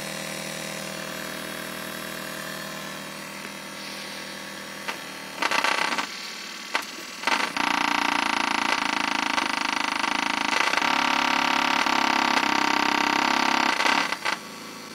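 A pair of 1978 Soviet 4GD-35-62 4-ohm loudspeakers playing low test tones from a frequency generator, stepped up about a hertz at a time in the 40 to 55 Hz range, heard as a buzzing drone rich in overtones. It swells briefly twice around the middle, turns much louder about seven seconds in with its pitch shifting in small steps, and drops back just before the end.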